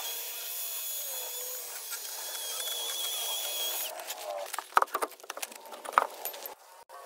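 Power tool, a cordless impact wrench, whirring steadily for about four seconds. Then it stops and a run of sharp metal knocks and clunks follows as the truck's road wheel is handled onto the hub.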